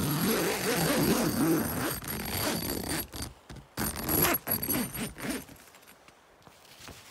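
Zipper on the door of a Hilleberg Nammatj 2GT tent being pulled open in two long rasping strokes, with a short pause about three seconds in; it goes quiet once the door is open.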